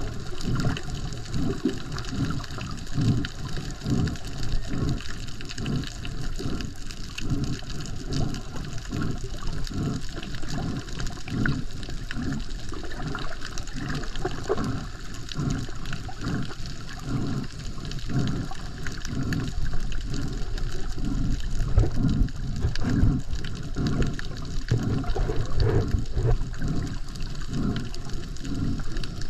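Water surging past an underwater camera while snorkeling. It pulses in an even rhythm of about one and a half surges a second, as from the snorkeler's swimming strokes.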